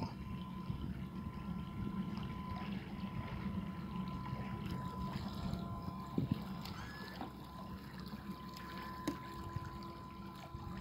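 Remote-controlled carp bait boat running out across open water: a thin steady motor tone over a low rumble and water sounds.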